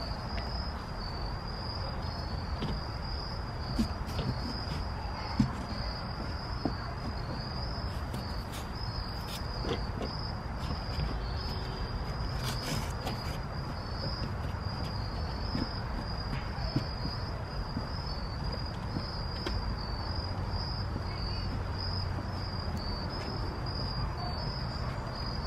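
Crickets chirping in a steady, pulsing high trill. Under it, a blanket rustles and there are a few light knocks and clicks as it is handled inside a wooden shelter.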